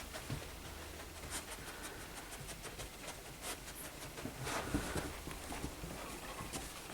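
A Labradoodle puppy moving about indoors while searching for a hidden treat: irregular light clicks and patters of paws and claws, with small handling knocks.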